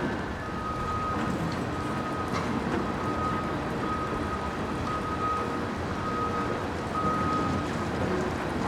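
A series of electronic warning beeps, one steady high tone about once a second, eight or nine times, over a steady rumble of traffic and wind.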